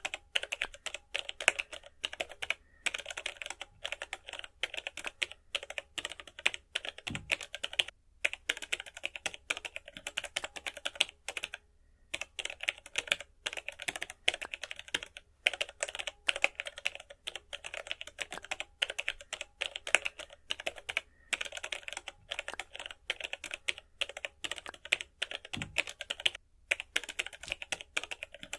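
Rapid, light clicking and tapping that goes on in long runs, broken every few seconds by brief pauses.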